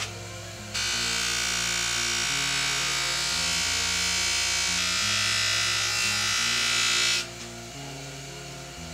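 A stainless steel window frame pressed against the spinning cloth wheel of a bench jewelry polisher, making a loud, steady buffing hiss from about a second in until near the end. Background music with a stepping bass line plays throughout.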